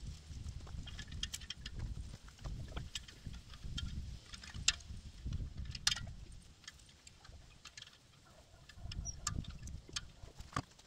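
Cotter pins being fitted and bent over on a steel solar tracker post: scattered sharp metal clicks and taps, the loudest about halfway through, over an uneven low rumble. A few footsteps in dry grass near the start.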